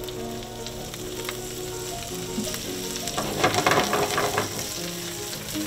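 Butter and olive oil sizzling in a frying pan with cabbage, cilantro and tomatoes in it. About three seconds in, the pan is moved by its handle and the sizzle grows louder and more crackly for a second or so.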